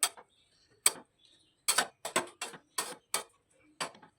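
Kitchen utensils knocking and clinking against a cooking pot: about nine sharp, irregular clicks with brief ringing.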